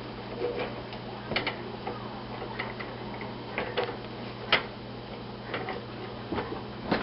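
Irregular light clicks, taps and soft crackles of hands folding and rolling a filled wrap, tucking in its corners, over a steady low hum.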